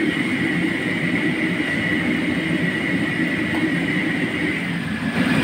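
Whole mud crabs deep-frying in a wok of bubbling oil: a steady sizzle and crackle over a constant low rumble.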